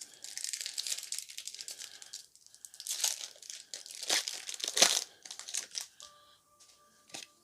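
Pokémon booster pack wrapper being crinkled and torn open by hand, with a run of rustling and then several loud rips about three to five seconds in.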